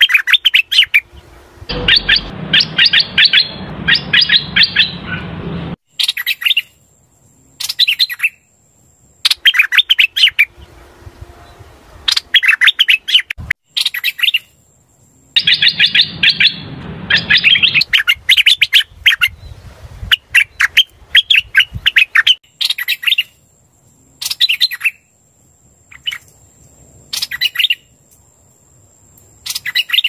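Song of the hoành hoạch bird played as a trapping lure: loud phrases of rapid, high chirping notes repeated every second or two with short gaps between them. A low rumble sits under two of the longer phrases.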